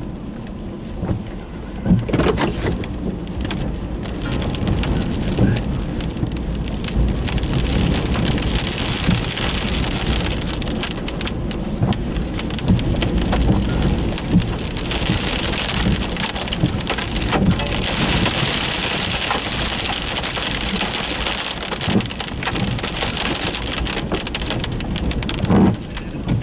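Storm-force wind gusts buffeting a vehicle while blown dirt and debris pelt its body and windows: a dense hiss full of small ticks over a heavy low rumble, swelling and easing with the gusts.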